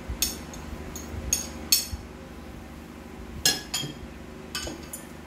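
Metal spoon clinking against a ceramic plate while scooping out mango filling: about six light, ringing clinks at uneven intervals.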